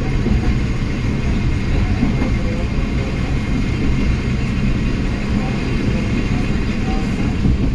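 Steady low rumble of a train in motion, heard from inside an old-style passenger coach.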